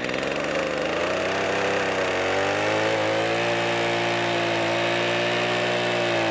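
Stihl two-stroke chainsaw running at high revs and cutting through an elm log; its engine note drops about two seconds in, then holds steady.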